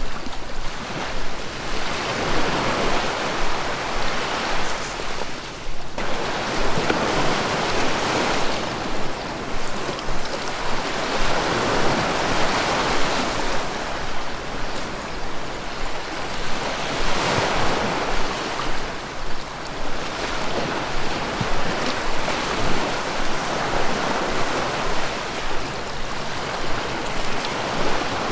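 Ocean waves breaking and washing up on a beach, the surf swelling and easing every few seconds.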